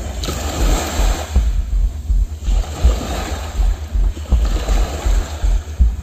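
Small ocean waves breaking and washing up a sandy beach, the surf swelling and ebbing in two or three surges. A low pulsing bass from background music runs underneath.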